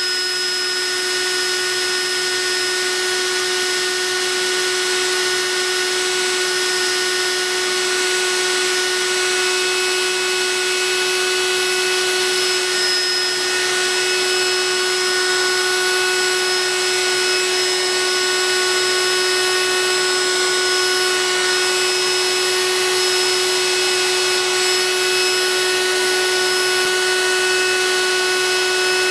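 Vacuum motor drawing air through a CNC vacuum hold-down table, running at a steady high whine with several constant tones.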